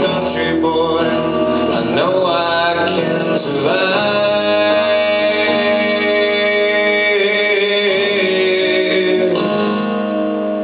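Country song: guitar-backed band music with long sustained notes and some male singing.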